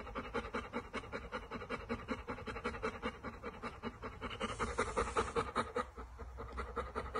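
Golden retriever panting rapidly and evenly, about five breaths a second.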